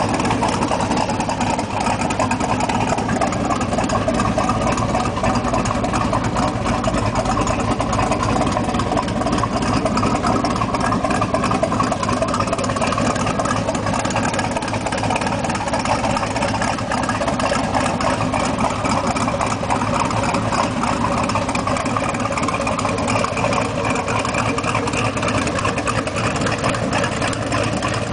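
A 1967 Corvette's 427 cubic-inch Tri-Power V8 idling steadily.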